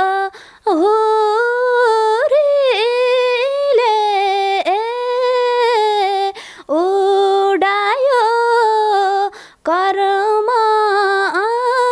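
A woman singing solo and unaccompanied, a slow Nepali song in long held notes with wavering ornaments. There are three short breaks for breath between phrases.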